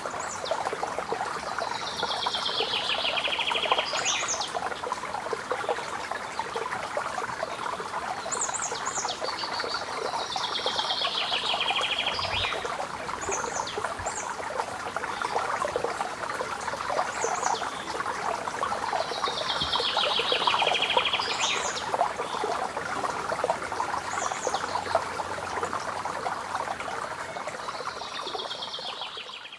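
Steady running and splashing water from a fountain, with a songbird repeating a short descending trilled song four times, about every eight seconds, and a few brief high chirps between.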